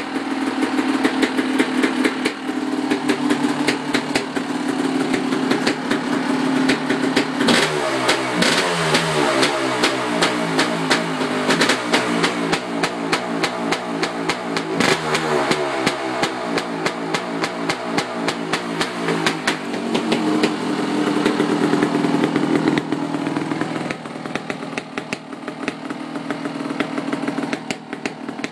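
A 1989 Kawasaki KX500's single-cylinder two-stroke engine running with a crackling exhaust. It holds a steady fast idle, then from about seven seconds in it is revved up and down over and over for about twelve seconds. It then settles back to steady running and is a little quieter near the end.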